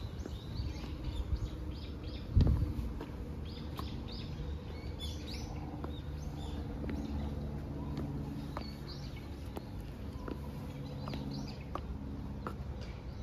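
Small birds chirping, many short high notes repeated throughout, over a low steady hum. There is a single low thump about two and a half seconds in.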